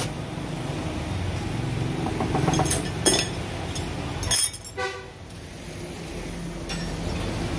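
Rebar bending machine running with a steady low hum, and a few sharp metal clanks in the middle as steel rods are set on the table and bent into anchor-bolt hooks.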